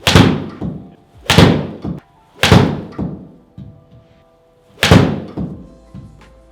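Four sharp golf iron strikes on the ball, the first three about a second apart and the last after a longer gap, each with a short ringing tail, over background music.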